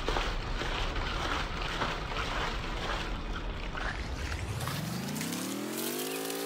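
A rough, noisy churning rumble, then about four seconds in a motor-like whine rises in pitch and settles to a steady tone, as of a small electric motor spinning up to full speed.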